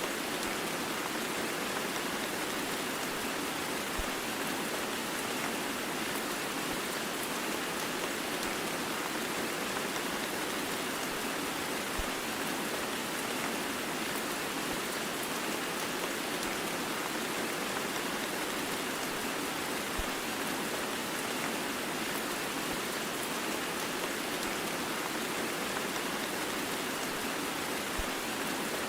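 Heavy rain blended with white noise: a steady, even hiss with no thunder and no change in level.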